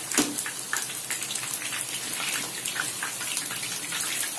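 Marinated, batter-coated chicken wings deep-frying in hot oil, a steady sizzle dense with small crackling pops.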